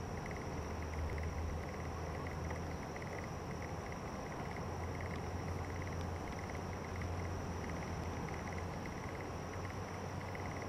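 Insects chirping in rapid, evenly repeated pulses over a steady hiss and a low background rumble.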